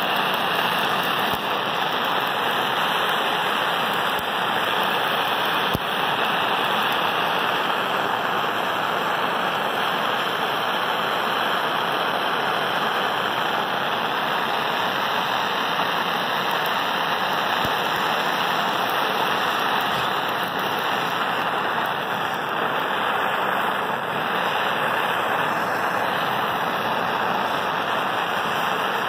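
Handheld gas torch flame burning with a steady, even hiss as it is played against a cement disk.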